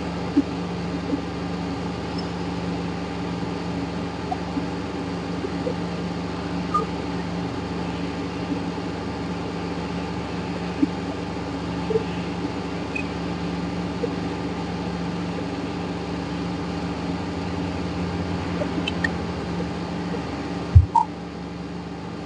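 Steady mechanical hum made of several level tones, with a few faint small clicks scattered through it and one short sharp thump about 21 seconds in.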